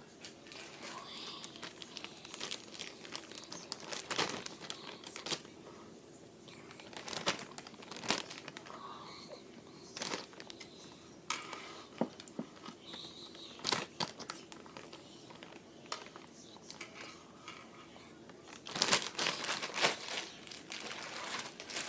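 Slime being squeezed and worked by hand, making irregular crackling clicks and pops, with a dense flurry of them near the end.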